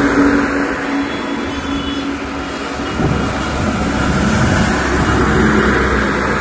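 Loaded diesel truck passing close on a wet highway: its engine rumble and tyres hissing through water on the road swell from about three seconds in and peak a second or two later, over a steady hiss of wet-road traffic noise.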